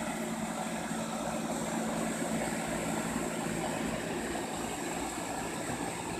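Outdoor air-conditioner condenser unit running: a steady hum with fan noise over it.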